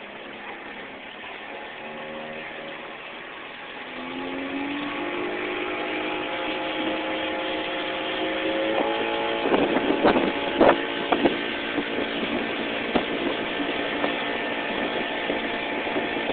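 Outboard motor of a small open boat running under way. It rises in pitch and gets louder from about four seconds in as the boat speeds up, with a cluster of sharp knocks around ten seconds in.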